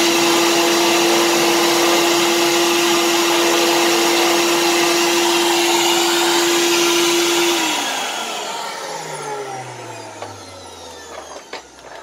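Hoover central vacuum running with its single three-stage motor and Quadraflex power nozzle, pretty loud with a steady whine; the unit has no muffler and is not vented outside. About seven and a half seconds in it is switched off, and the motor winds down with a falling whine.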